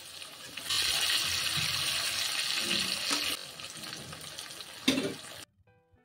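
Potato slices sizzling in hot mustard oil in a kadhai. The sizzle gets louder about a second in and eases off around three seconds. There is a short knock near the end, and then the sizzle cuts off suddenly.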